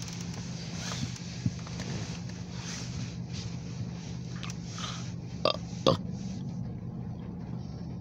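Steady low hum of a parked car idling, heard from inside the cabin, with rain pattering on the roof and windshield. Two short throaty noises from a person about five and a half and six seconds in.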